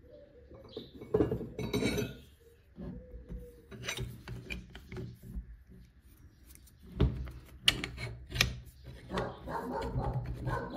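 A steel chisel being picked up and slid into a demolition hammer's chuck: irregular metal clicks and knocks with scraping and rubbing as the greased shank goes in, busiest about a second in and again toward the end.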